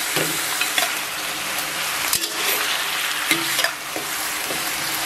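Pork ribs and pork belly stir-frying in a large cast-iron wok with oil and caramelised sugar: a steady sizzle, with the metal ladle scraping and clinking against the wok a few times as the meat is tossed.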